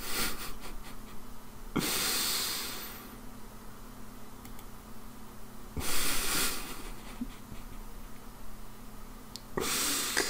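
A man breathing out hard three times, amused huffs of laughter through the nose without voice, each about a second long. A faint steady hum runs underneath.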